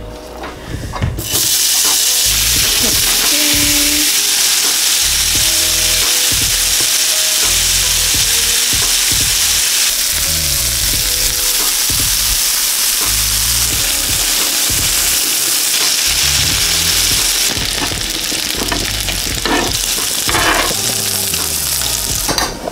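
Meat sizzling in a hot frying pan, a steady loud hiss that starts suddenly about a second in.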